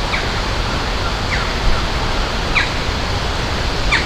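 Steady rushing water, with a bird calling over it: a short, high, falling chirp repeated four times, roughly every second and a half.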